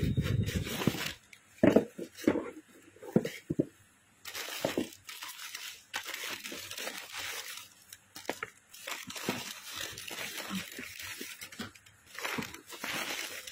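A cardboard shoe box is handled, with a few sharp knocks and a thud in the first seconds, then tissue paper crinkles and rustles at length as a pair of shoes is unwrapped.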